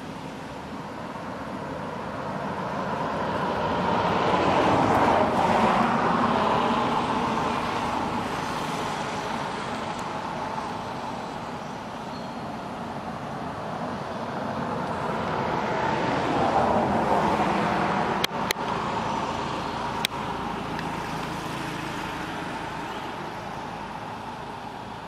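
Road traffic: two vehicles pass one after the other, each swelling up and fading away over several seconds. The first is loudest about five seconds in and the second about sixteen seconds in. Three sharp clicks follow soon after the second pass.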